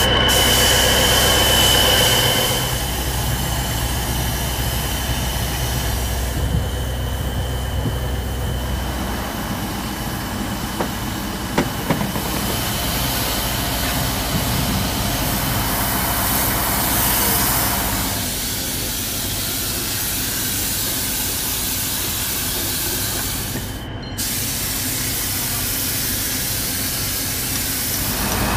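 Paint spray gun hissing as sand-coloured paint is sprayed onto a tank's hull, over a steady running engine. The sound changes abruptly several times and briefly drops out near the end.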